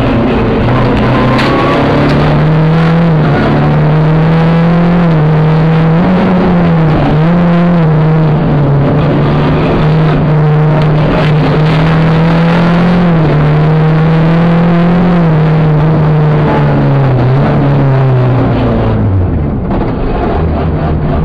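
Rally car engine heard from inside the cabin, driven hard on a stage: its note climbs and drops again and again as the car goes up and down the gears. Near the end the engine note falls away.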